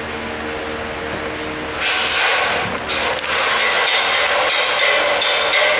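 Sheets of paper and postcards rustling and being handled on a wooden table, starting about two seconds in and running on with brief pauses, over a steady low hum.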